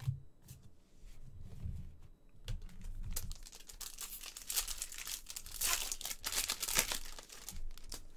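Clear plastic wrapper of a trading-card pack being crinkled and torn open by hand. A few soft knocks of cards handled on the table come first. The crackling builds about halfway through and is loudest a second or so before the end.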